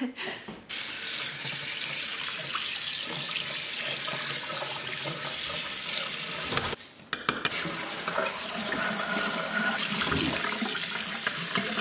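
Water running from a kitchen faucet's pull-down sprayer into a sink drain, rinsing food debris from the drain strainer. The flow breaks off briefly about seven seconds in, with a few clicks, then runs again.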